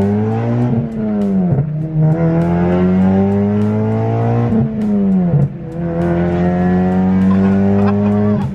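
A Honda Civic Si's 2.4-litre four-cylinder, breathing through a catless 3-inch downpipe and cat-back exhaust, heard from inside the cabin under acceleration. The note climbs with revs and drops away sharply at each gear change, three times.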